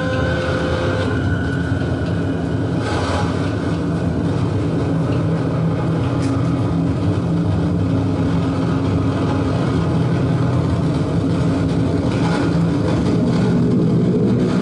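Dark ambient noise drone played live on electronic instruments: a dense, loud low drone of steady held tones over a thick noisy bed. A higher tone fades out about a second in, and a hissing swell rises briefly around three seconds in and again near the end.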